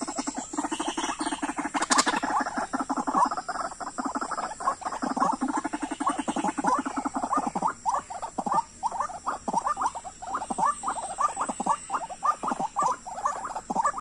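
White-breasted waterhens calling: fast runs of repeated throaty notes, turning into separate, evenly spaced calls at about two to three a second in the second half.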